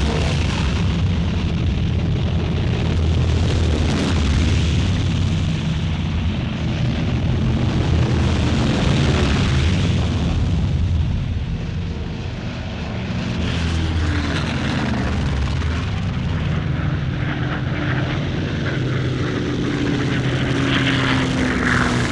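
Propeller-driven B-25 Mitchell bombers' piston engines running in a loud, steady drone. In the second half a tone slides slowly down in pitch as an aircraft passes.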